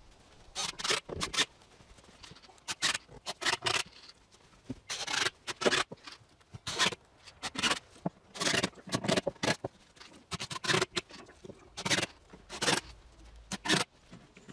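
Irregular knocks and scrapes of wooden boards and triangular wood pieces being handled and set into the corners of a wooden box.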